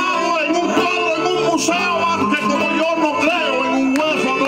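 A man sings an improvised décima in Cuban punto guajiro style, his voice gliding over a steady accompaniment of guitar and Cuban laúd.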